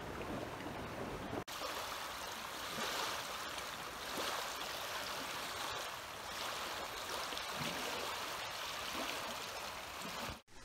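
Small waves lapping on a pebble beach at the edge of a loch: a steady wash of water that swells and eases every second or two.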